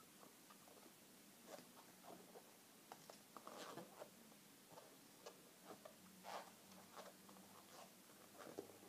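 Faint, scattered squeaks and rubbing of a latex 260 modelling balloon being twisted and bent by hand, a little louder about a third of the way in and again past the middle.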